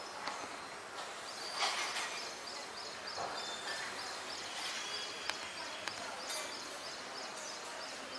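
Outdoor ambience: a steady hiss with a run of quick high chirps, about three a second, from about one and a half to five seconds in, and a brief louder rustle-like sound near the start.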